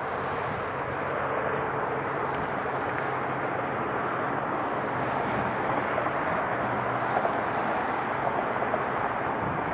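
Boeing 737-800 airliner's two CFM56-7B turbofan engines at approach power as the jet comes in on final approach: a steady jet rumble that grows a little louder in the first second and then holds.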